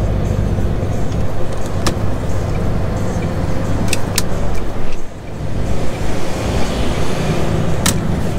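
MAN TGX semi-truck's diesel engine running steadily, heard inside the cab as the truck pulls away from a roundabout. The engine noise dips briefly about five seconds in and builds again, and a few sharp clicks stand out.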